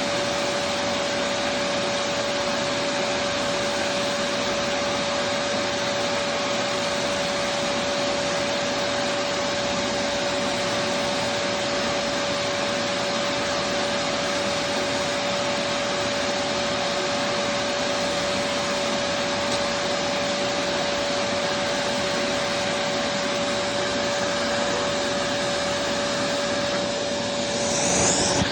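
Vacuum cleaner running steadily: a constant rush of air with a single steady whine. The sound swells and shifts briefly near the end.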